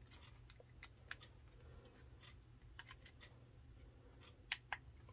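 Faint small plastic clicks and taps as a USB power meter and USB plugs are handled and pushed into a USB power bank, with two sharper clicks near the end as the connector goes home.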